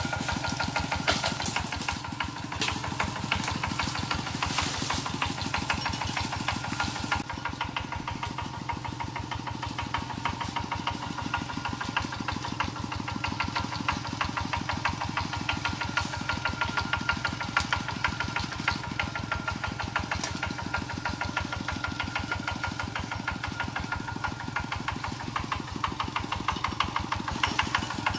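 Kubota RT120 walking tractor's single-cylinder diesel engine chugging steadily as it drives along, a rapid even beat of firing pulses.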